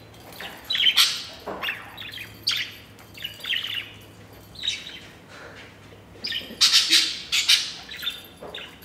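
Budgerigar chirping in a string of short calls, with a flurry of louder sounds a little after two-thirds of the way through, while its plastic lattice ball toy knocks about on the tile floor.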